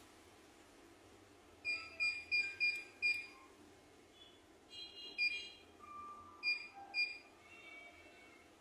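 Short electronic key-press beeps from a computerized embroidery machine's control panel as its buttons are pressed to load a design: five in quick succession, a short cluster a few seconds later, then two more.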